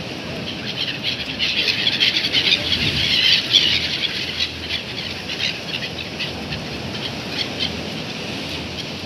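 A flock of gulls calling, many short high squeals overlapping, thickest a second or so in and thinning out toward the end, over a steady rush of surf and wind.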